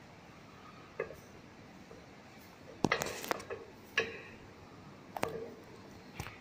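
Metal clicks and clinks of a dial test indicator and its magnetic stand being handled and adjusted: a handful of sharp knocks, the loudest cluster about three seconds in.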